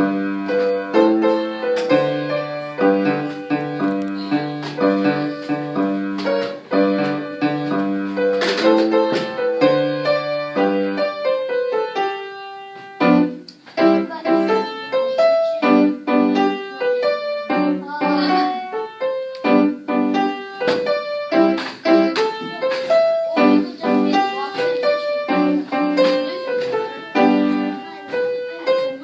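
Piano being played solo: a melody over chords in separate struck notes, with a brief break about halfway through before the playing resumes.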